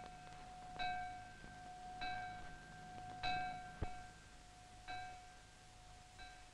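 A hanging metal bell, hand-rung, is struck five times about a second and a quarter apart, each stroke ringing out and dying away. It is the call to morning devotion.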